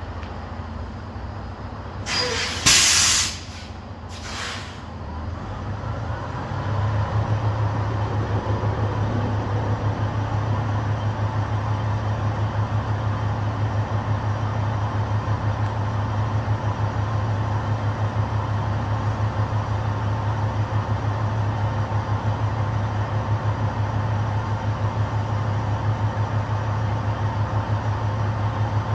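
Air hissing from a semi-truck's air brakes, once loud for about a second and again briefly about two seconds later. Then the truck's diesel engine sets in with a steady low drone about six seconds in and keeps running.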